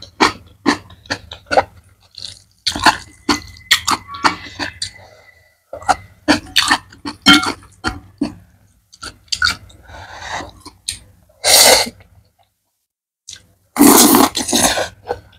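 Close-up eating sounds: wet chewing with many short mouth clicks and smacks, then a loud slurp of black noodles near the end, with a shorter slurp before it.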